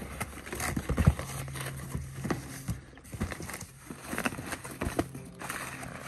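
Cardboard box flaps being pulled open and crumpled brown packing paper crinkling and rustling as it is lifted out of the box, in irregular crackles and scrapes.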